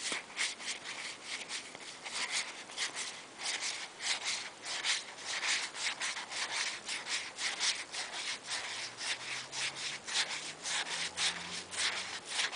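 Yu-Gi-Oh trading cards slid one by one off a hand-held stack, a dry rubbing swish with each card, about three a second.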